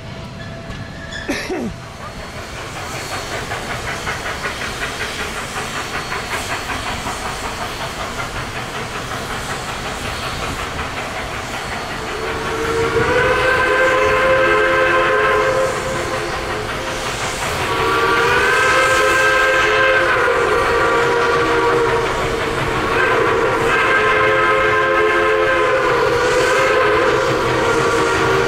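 Durango & Silverton K-36 steam locomotive #480 running, then sounding its steam whistle in three long chime blasts, the last one the longest.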